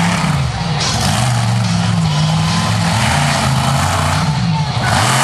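Monster truck engine revving, its pitch rising and falling several times as the truck drives across the dirt.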